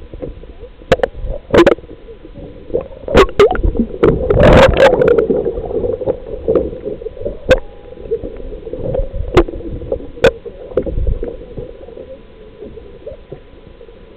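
Water sloshing and gurgling, with sharp knocks and clicks over a steady hum and a loud rush of water about four seconds in.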